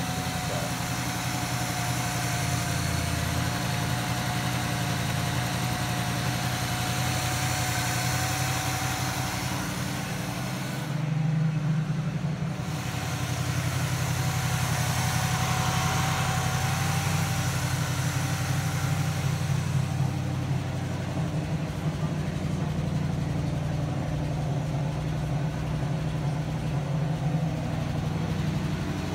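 1971 Triumph Stag's V8 engine, fitted with a four-barrel carburettor, idling steadily just after a cold start. It runs a little louder from about eleven seconds in, with a faint steady whine over the engine hum.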